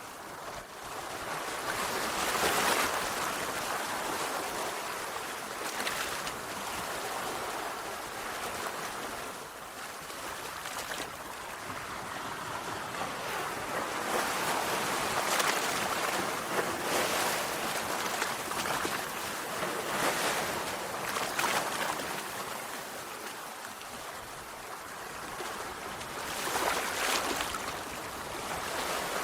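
Sea waves breaking and washing on a shore, with the surf swelling and easing every few seconds.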